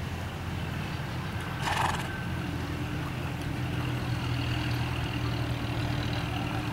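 A steady low engine hum, joined by a steadier higher tone about two and a half seconds in, with one short burst of noise just before the two-second mark.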